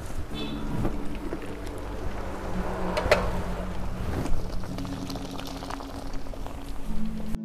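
A wok of water boiling hard on a wood-fired stove, a steady bubbling rumble, with one sharp metallic clank and brief ring about three seconds in as the aluminium lid is lifted off. Papaya leaves are being boiled in it.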